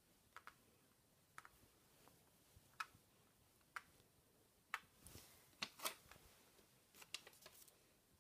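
Small plastic counting cubes being set down one at a time on a whiteboard: a series of faint, irregular clicks and taps, strongest about five to six seconds in.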